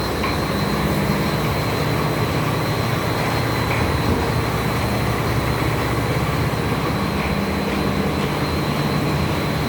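Solar-powered atta chakki running: a 15 HP electric motor driving a 24-inch flour-grinding mill, giving a steady, even hum and rumble with a thin high whine above it.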